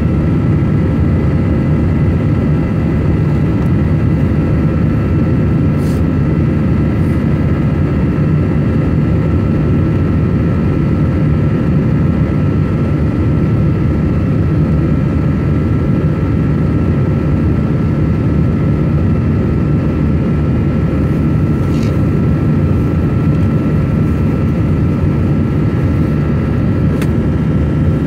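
Cabin noise of an Airbus narrow-body airliner climbing after take-off: the steady low roar of its jet engines and the airflow, with a few faint steady whining tones over it. A few faint clicks come and go.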